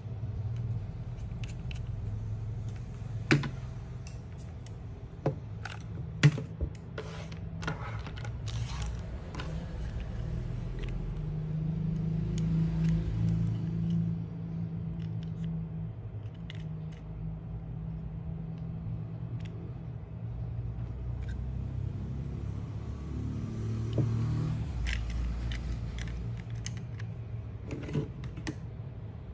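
Scattered clicks and knocks of a small plastic RC drift car and its pistol-grip transmitter being handled and opened, with a screwdriver on the transmitter's battery-cover screw. The two sharpest clicks come about 3 and 6 seconds in, over a steady low hum.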